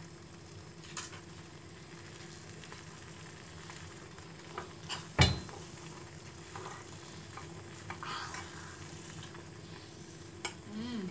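Metal spoon stirring thick melting cheese, butter and cornmeal in a stainless steel pot, with a low sizzle as it cooks. Small scrapes and taps of the spoon on the pot, and one sharp clink against the pot about five seconds in.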